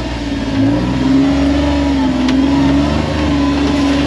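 Kawasaki Mule Pro FXR side-by-side's three-cylinder engine and drivetrain pulling steadily at crawl speed in four-wheel-drive low, the pitch wavering slightly with the throttle.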